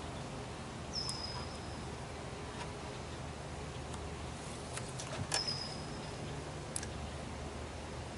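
A bird calls twice, about four seconds apart. Each call is a short high whistle that dips slightly in pitch, then holds steady for under a second, over a low steady hum with a few faint clicks.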